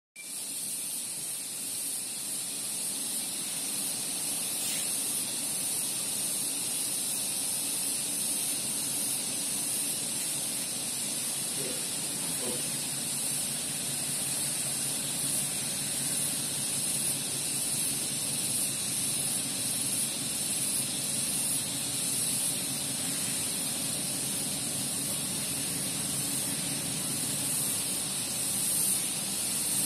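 Diesel locomotive engine running as the train slowly pulls away and approaches, a low rumble that grows stronger from about halfway through, under a steady high hiss.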